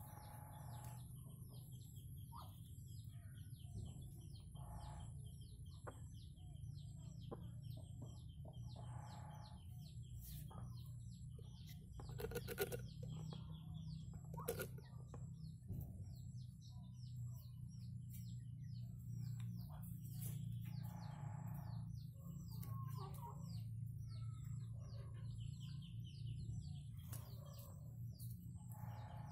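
Red junglefowl giving short clucking calls every few seconds over dense, quick high-pitched chirping and a steady low hum. Two sharp knocks, about two seconds apart near the middle, are the loudest sounds.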